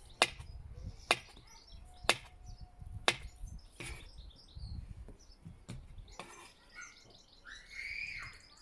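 Kitchen knife slicing a banana on a chopping board, each cut ending in a sharp tap on the board, about once a second. Birds chirp in the background.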